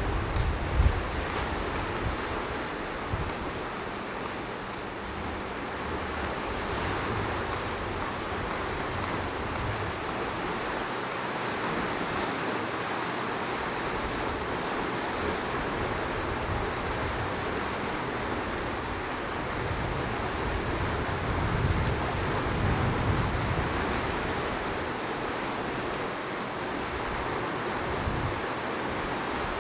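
Steady wash of sea surf, with wind buffeting the microphone in low gusts, strongest near the start and again about two-thirds of the way through. A couple of brief knocks in the first few seconds.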